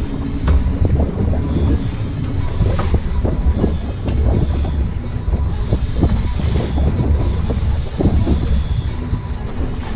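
Small fishing boat under way on choppy water: a steady low rumble of motor and wind with frequent knocks and rattles as the hull rides the chop.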